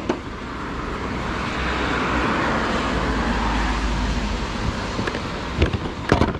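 A road vehicle passing: the hiss of its tyres with a low rumble beneath, swelling and fading away. Two sharp clicks come near the end.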